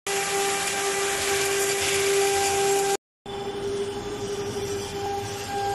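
CNC router's high-speed spindle whining at one steady pitch over a hiss of the cutter machining metal. The sound cuts out for a moment about three seconds in, then the same steady whine resumes.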